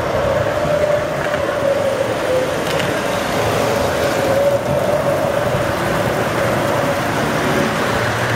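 Model trains running on the layout: their small electric motors give a steady whine that wavers slightly in pitch, over a steady rumble of wheels on track.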